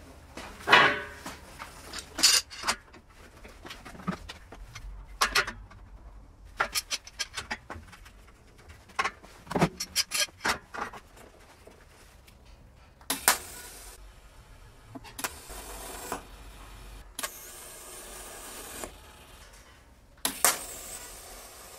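Scattered metallic clinks, knocks and clatter of steel parts and tools being handled, with a clang that rings briefly about a second in. In the second half come a few short hissing, scraping stretches.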